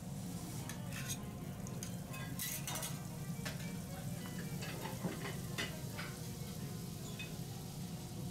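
Food sizzling on a teppanyaki steel griddle, with metal spatulas clicking and scraping against the hot plate at irregular moments, over a steady low hum.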